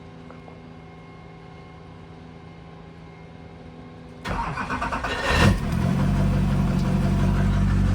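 Rebuilt LBZ Duramax 6.6-litre V8 turbodiesel being started: after a few seconds of low hum, the starter cranks it about four seconds in, it catches with a loud burst about a second later, and it settles into a steady idle.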